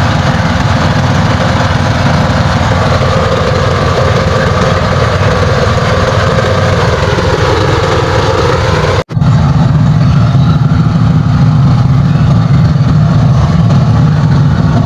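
Engine of a motorized outrigger passenger boat (bangka) running steadily under way. It cuts out for a moment about nine seconds in and comes back louder.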